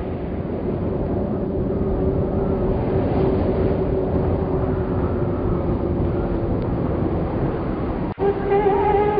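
A steady low rumbling rush of noise with a faint held tone underneath, in a pause between sung lines. Just after eight seconds it breaks off for an instant and a woman's voice resumes singing the Urdu lament.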